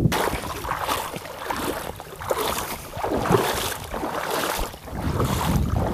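Shallow seawater sloshing and splashing in repeated surges, about one a second, close to the microphone.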